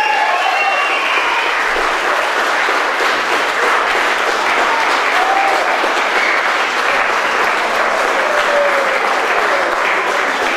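Wedding guests applauding: many hands clapping steadily and loudly.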